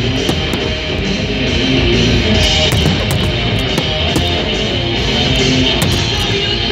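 Loud rock music with electric guitar, the fireworks show's soundtrack.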